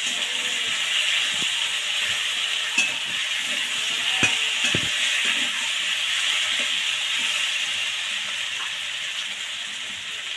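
Diced potatoes sizzling in oil in an aluminium kadai, stirred with a metal spatula that scrapes the pan and knocks against it a few times, about three and four seconds in.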